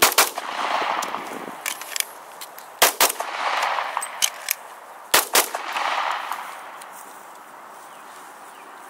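Semi-automatic pistol fired in three quick pairs of shots, one pair near the start, one about 3 seconds in and one about 5 seconds in. Each pair is followed by a rolling echo lasting about a second.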